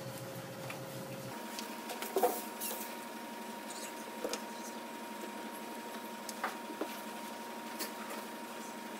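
Dry-erase markers being handled at a whiteboard: a few short squeaks and clicks of marker and cap, the loudest about two seconds in, over a steady background hum.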